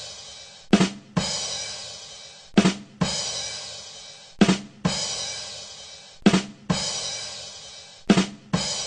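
The 'ba dum tss' rimshot sting on a drum kit, looped: two quick drum hits followed by a cymbal crash that fades. It repeats about every two seconds, five times over.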